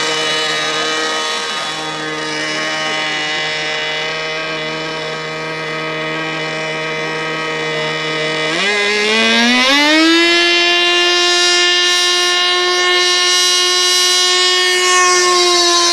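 Methanol glow engine driving the ducted fan of an L-39 Albatros RC model jet, running steadily, then throttled up a little past halfway: the pitch climbs over a second or so to a higher steady whine, louder, as the model rolls down the runway.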